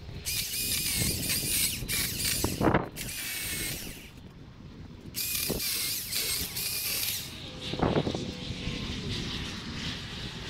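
Milwaukee M18 Fuel battery chainsaw cutting wood in several bursts of a second or two, its electric motor whining as the trigger is squeezed and released. A few sharp cracks or knocks come between the cuts, the loudest about eight seconds in.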